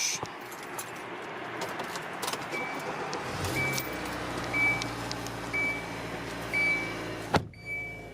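Car's warning chime beeping about once a second as the car's engine starts about three and a half seconds in and settles into a low steady idle. A single sharp click sounds near the end.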